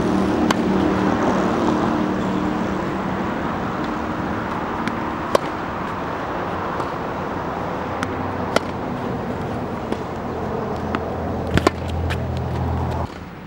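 Tennis balls struck by a racket, sharp single pops every few seconds, over steady road-traffic noise with a car engine's hum that fades over the first couple of seconds. The background drops off abruptly near the end.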